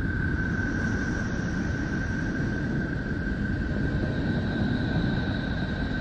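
Voyager 2 plasma-wave data from Neptune's magnetosphere converted to audio: a steady high whistle on one pitch, with fainter higher tones above it, over a rough low rumble.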